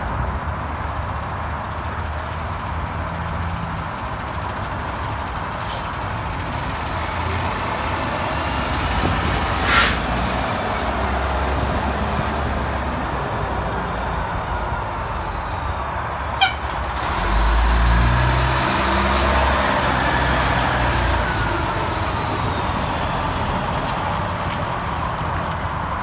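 Fire truck's diesel engine running, with a short sharp hiss of air about ten seconds in. The engine grows louder a little past the middle, as if revving or pulling away.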